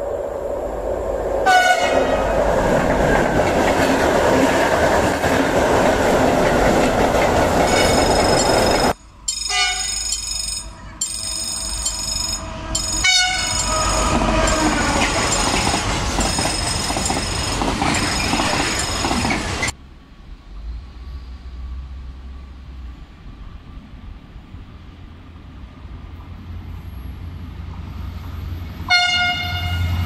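Freight locomotive horns sounding in greeting as trains pass: a horn blast about a second and a half in, several short blasts in the middle and another near the end. Between the horns, loaded freight wagons rumble and clatter loudly past on the rails.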